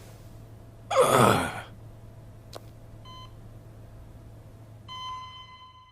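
Electronic beeps from a small device: one short beep, then a longer beep tone that fades away near the end, with a sharp click between. About a second in, a person gives a short sigh that falls in pitch. A low steady hum sits underneath.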